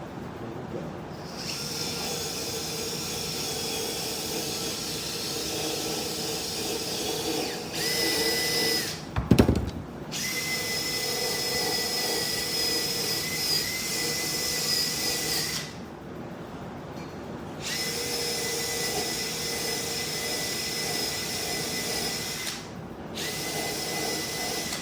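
Handheld electric power tool, drill-type, running in long steady runs to clean up old bolts. It stops briefly several times, and there is a loud knock about nine seconds in.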